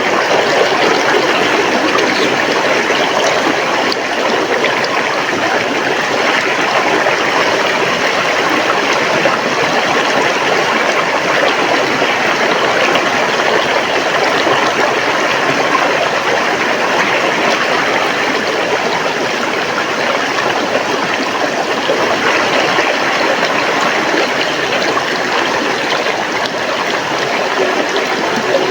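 River water flowing over rocks: a steady, loud rushing with gurgling.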